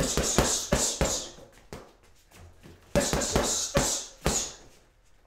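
Boxing gloves punching a leather heavy bag in two fast five-punch combinations (jab, cross, lead hook to the body, lead hook to the head, cross), about five thuds each. The first flurry comes at the start and the second about three seconds in.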